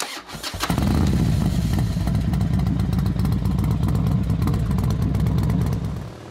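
Motorcycle engine running steadily with a fast, even beat, coming in abruptly and fading away near the end.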